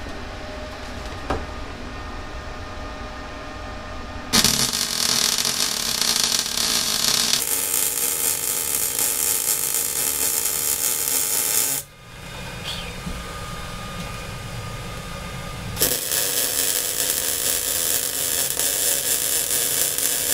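Electric arc welding on steel box section: two weld runs, each a loud steady hiss. The first starts about four seconds in and lasts about seven seconds; the second starts after a pause of about four seconds.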